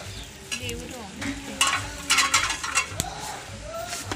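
Rustling handling noise with a quick run of sharp clicks and knocks, and faint voices behind.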